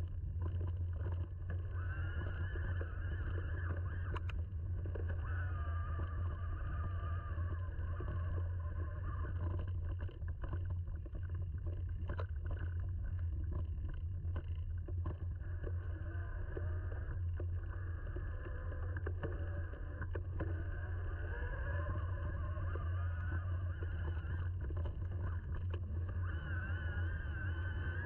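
Mountain bike riding a dirt forest trail: a steady low rumble of tyres and wind on the microphone, with scattered knocks and rattles over bumps and a faint whine that rises and falls.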